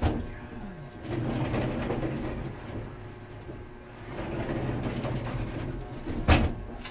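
Plywood sliding door rolling along its overhead steel track, with a knock as it shuts at the start. It rumbles open, then rolls back and shuts with a louder knock near the end.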